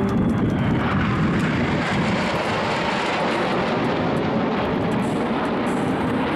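Steady jet noise from a formation of six Northrop F-5E Tiger II fighters flying past, each powered by twin General Electric J85 turbojets.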